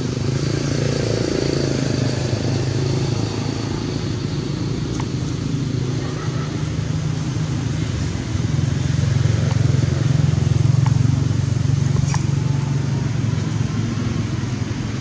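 Low, steady motor-vehicle engine rumble, growing louder from about eight seconds in to about twelve seconds.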